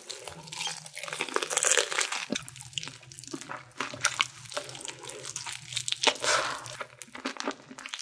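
Close-up crunching of crispy Korean fried chicken being bitten and chewed, the batter crackling in many quick, sharp snaps.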